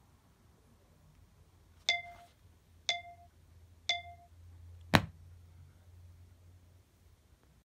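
Three short ringing pings from a struck object, evenly spaced about a second apart, each with a clear tone that dies away quickly, followed a second later by one sharp click.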